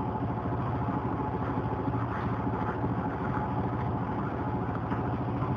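A steady low mechanical hum, like a motor running, with no change in pitch or level.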